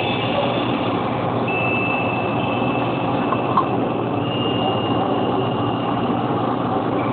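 Steady rushing noise of heavy thunderstorm rain and wind, with faint high whistling tones coming and going.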